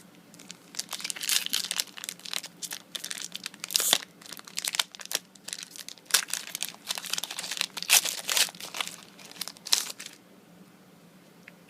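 Yu-Gi-Oh booster pack wrapper crinkling and tearing as it is handled and torn open, a dense run of sharp crackles that stops about ten seconds in.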